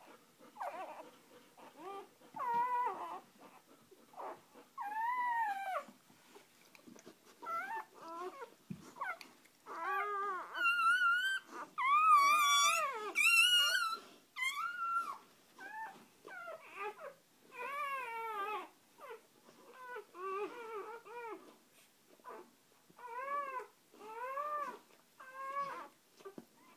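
Newborn puppies crying: a run of short, high-pitched squeals and whimpers, one after another, each rising and falling in pitch, with the loudest and shrillest cries a little under halfway through.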